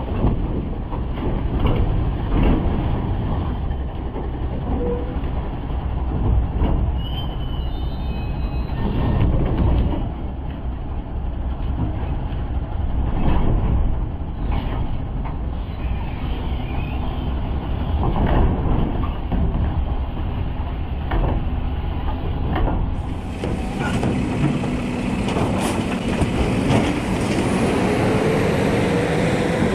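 Mack garbage truck's diesel engine running, with repeated knocks and clanks from the truck's hopper and body. About three-quarters of the way in, the truck pulls away, its engine note rising near the end.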